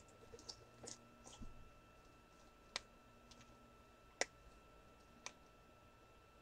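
Near silence broken by faint, scattered sharp clicks: a few close together in the first second and a half, then single ones about 3, 4 and 5 seconds in, the one at about 4 seconds the loudest. A faint steady high whine runs beneath.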